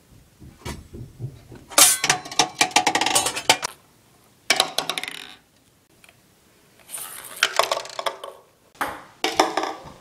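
Ping pong balls bouncing on hard surfaces and rattling into plastic cups, in four separate bursts of quick clicks with short pauses between them.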